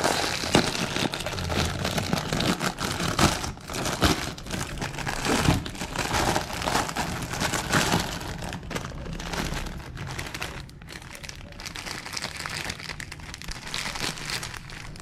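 Plastic packaging crinkling in the hands: the outer bag of a Mamee Chef instant-noodle multipack is handled open and a single noodle packet is pulled out. It makes a dense, irregular crackle that gets quieter in the last few seconds.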